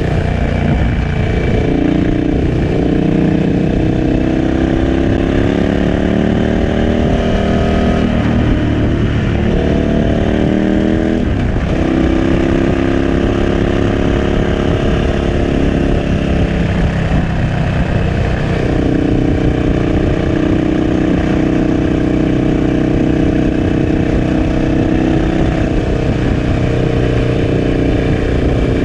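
KTM 1290 Super Adventure S's V-twin engine through a Remus 8 exhaust, heard on board while riding. The engine note climbs in pitch, breaks off and climbs again a few times, then holds a steady cruise over the last ten seconds.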